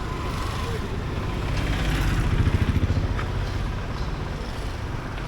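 Street traffic with a motor vehicle engine running close by, its low rumble swelling about two to three seconds in as it passes.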